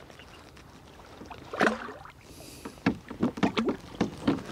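A hooked bass splashing and thrashing at the water's surface beside a kayak as it is played to the boat: one sharp splash under two seconds in, then a quick irregular run of splashes in the last second and a half.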